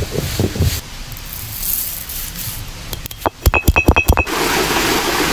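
Spices being ground by hand on a flat stone grinding slab with a stone roller (ammi kal). The roller is worked in even rhythmic strokes, then gives a quick run of sharp stone clinks about three and a half seconds in, then a steady hiss of seeds being crushed.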